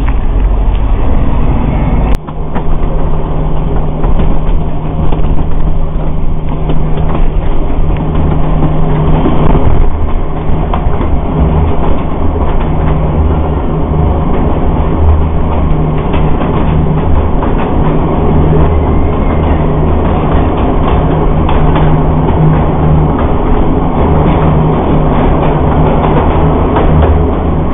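Narrow-gauge forest railway train heard from on board while running through a tunnel: the diesel locomotive's steady low engine drone mixed with wheel and rail noise. About two seconds in, this sound cuts in abruptly after a road vehicle passing.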